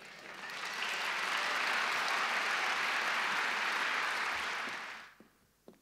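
Large auditorium audience applauding. The clapping builds over the first second, holds steady, then fades out about five seconds in.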